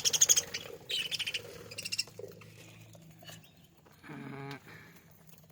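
A flock of budgerigars chirping in quick trains of short, high chirps, loudest in the first couple of seconds, then thinning out to scattered softer chirps.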